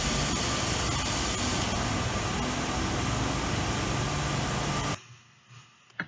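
Media filter backflush: water rushing through the filter tank's piping over a steady machinery hum. It cuts off abruptly about five seconds in, and a brief click follows near the end.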